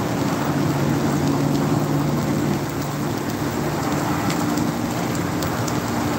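Chopped ham and scrambled eggs sizzling on a hot electric griddle: a steady hiss with scattered little pops, over a low steady hum.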